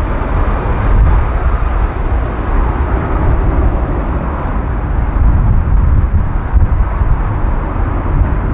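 Twin Rolls-Royce Trent 700 turbofans of an Airbus A330-300 freighter at takeoff power, a loud, steady, deep rumbling roar heard from behind the aircraft.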